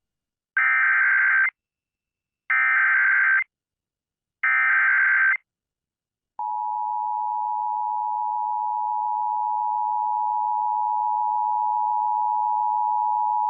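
Emergency Alert System activation: three short bursts of warbling digital SAME header data about two seconds apart, then, about six seconds in, the steady two-tone EAS attention signal begins. It is the broadcast signal that an emergency alert, here a severe thunderstorm warning, is about to be read.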